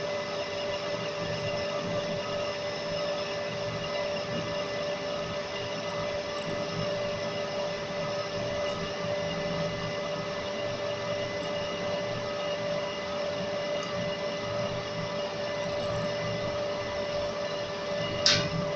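Metal lathe running with its chuck spinning while a tool turns a mild steel workpiece: a steady machine drone with several held tones. One sharp click near the end.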